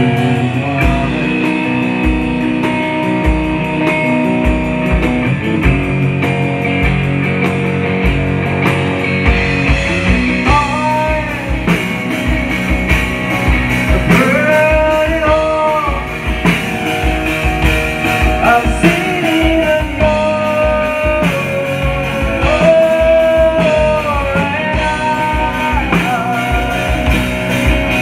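Live rock band playing: electric guitar and drums, with the drums filling out about nine seconds in and a sliding melody line coming in over the guitar soon after.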